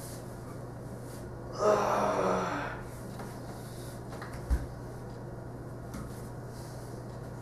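A person's breathy, strained vocal sound, about a second long, a couple of seconds in, then a single short low thump, over a steady low hum.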